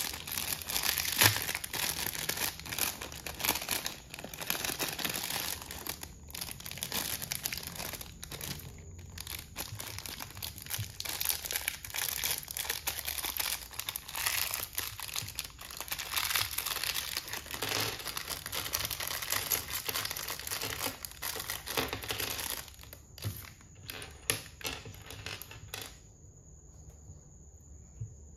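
Foil blind-bag wrapper crinkling and tearing as it is opened by hand, then a small clear plastic inner bag crinkling. The rustling thins to a few separate crinkles about 23 seconds in and goes quiet near the end.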